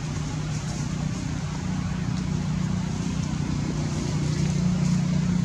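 Steady low drone of a motor vehicle's engine running, getting a little louder about four seconds in.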